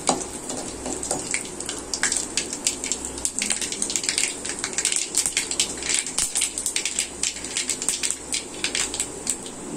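Mustard seeds spluttering in hot oil in a kadai: a dense, irregular crackle of small pops over a steady sizzle.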